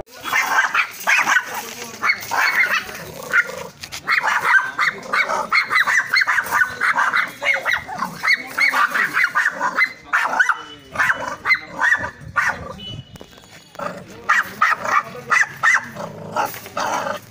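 Small dogs barking angrily in fast, repeated high yaps, with a few short pauses.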